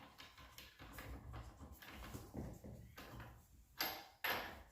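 Faint handling noises of hands and metal parts at a car wheel, then two short sharp clinks with a thin high ring near the end, about half a second apart.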